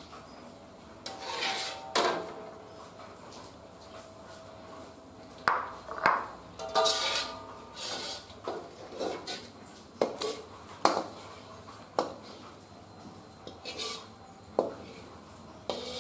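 Metal spatula scraping and knocking against a wok, with irregular sharp clanks, some followed by brief metallic ringing.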